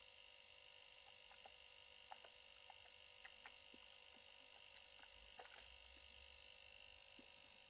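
Near silence: a faint steady electrical hum with a few soft, scattered clicks.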